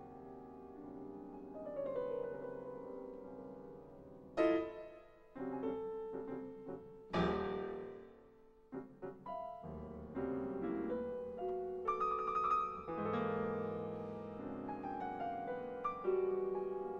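Steinway grand piano played solo in a modern, atonal style. Soft held notes and chords are broken by sudden loud chords about four and seven seconds in, then busier, denser playing follows.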